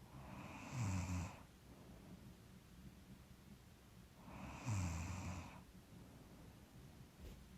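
A sleeping person snoring: two snoring breaths about four seconds apart, each a low rattling rumble with breath hiss. The snoring comes from a stuffy nose, in the sleeper's own guess.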